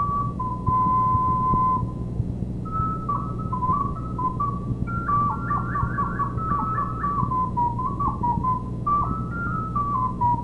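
Solo recorder playing a high melody: a held note about a second in, then quick runs and trills in the middle before settling again. A steady low hum runs underneath.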